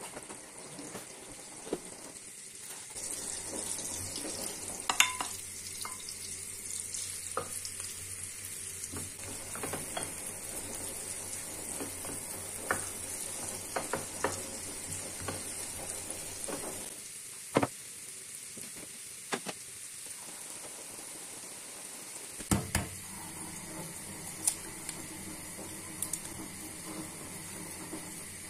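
Food sizzling in a frying pan, a steady hiss that fades about 23 s in, with scattered clinks and knocks of kitchen utensils and dishes.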